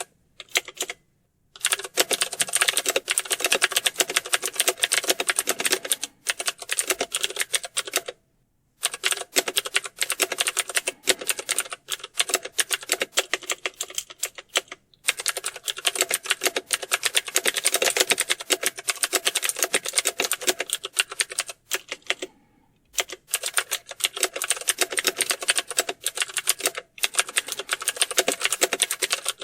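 Fast, continuous typing on a computer keyboard: dense runs of key clicks, broken by brief pauses about a second in, around six and eight seconds in, and near the twenty-two-second mark.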